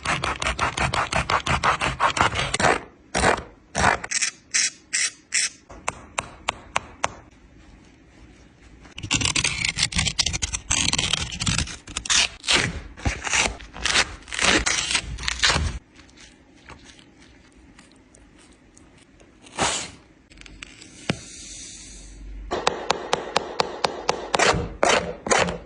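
Scraping, sawing strokes of a shoe being cut apart: quick runs of strokes at about eight a second, broken by pauses and single strokes.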